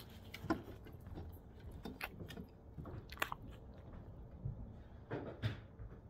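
A dog chewing and crunching dry food close to the microphone, with a handful of irregular crunches spread across the seconds.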